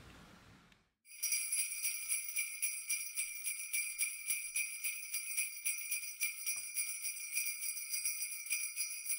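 Sleigh bells jingling in a quick, steady rhythm, starting about a second in after a moment of near silence.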